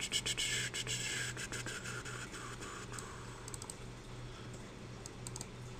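Computer mouse scroll wheel clicking in quick runs, thickest in the first second and then in short sparse bursts, over a steady low hum.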